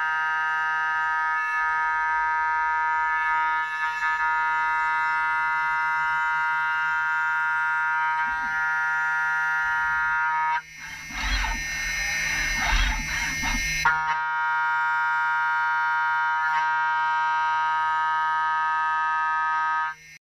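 Hermle 5-axis machining centre milling an aluminium part: the cutter gives a steady high-pitched whine made of many evenly spaced tones. From about 11 to 14 s the whine gives way to a rougher, noisier cutting sound with a low rumble, then it returns and stops abruptly near the end.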